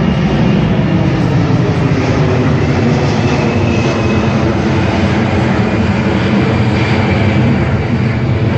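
C-17 Globemaster III's four Pratt & Whitney F117 turbofans at takeoff power during a steep climb-out: a loud, steady jet roar with a faint high whine above it.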